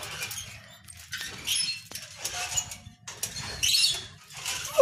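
Playground swing in motion: a rushing noise swells and fades about once a second as it swings back and forth, with a brief squeak about halfway through.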